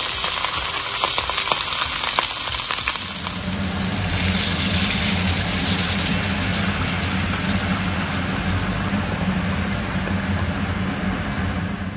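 Veal roast sizzling and crackling in hot olive oil in a frying pan. About three seconds in, white wine is poured into the pan and the sizzle turns fuller and bubbling as the wine boils off.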